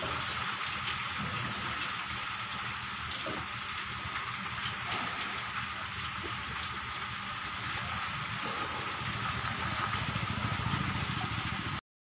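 Steady rain falling during a thunderstorm, cutting off abruptly near the end.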